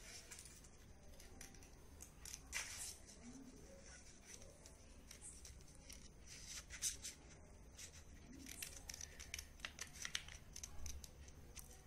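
Scissors snipping a strip of paper to cut a fringe along its edge. The snips are faint and irregular, some single and some in quick runs, mostly in the second half.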